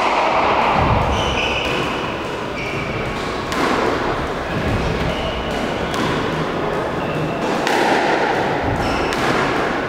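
Squash rally: the ball being struck by rackets and knocking off the court walls in sharp cracks a second or two apart, with short high squeaks from the players' shoes on the wooden floor.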